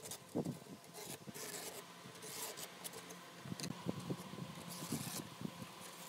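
Ballpoint pen scratching across a pine board while tracing around a cutting disc, in several short strokes, with a few soft knocks of the disc and hands on the wood.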